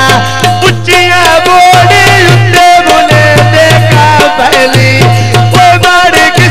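Punjabi folk music: a melody with a held tone over a steady hand-drum rhythm.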